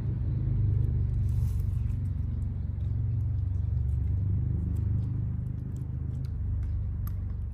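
Wind buffeting the microphone: a low, fluttering rumble that swells about a second in and eases off near the end.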